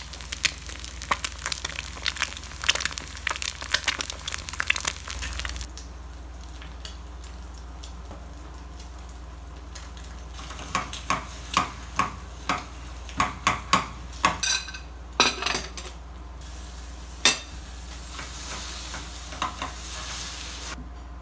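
Kitchen sounds of breakfast being made: dense crackling for the first five seconds or so, then after a quiet stretch a run of separate sharp clinks and taps of utensils and dishes, and a soft hiss near the end.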